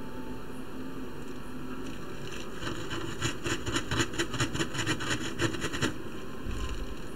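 Steady background hiss, with a run of quick scratchy noises, several a second, for about three seconds in the middle.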